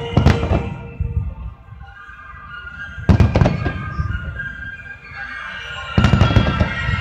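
Aerial fireworks bursting in three loud volleys about three seconds apart, with music playing underneath.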